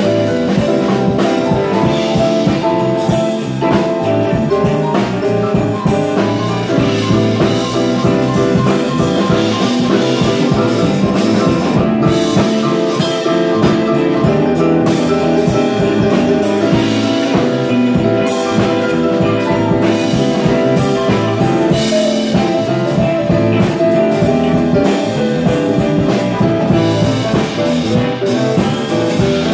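Live band playing a song: electric guitar, electric bass, keyboard and drum kit, with the drums keeping a steady beat.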